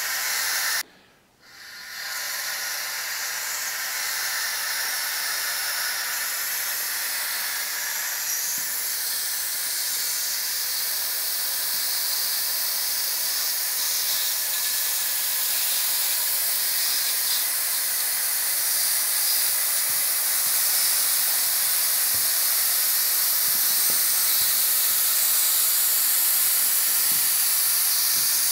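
Compressed air from an SCBA cylinder hissing steadily through the inflation valve into the tube of an inflatable rescue boat. The hiss cuts off for about half a second near the start, then comes back and runs on.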